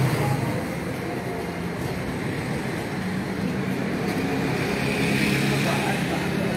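Steady rumble of road traffic with a low engine drone, heard through the showroom's glass front.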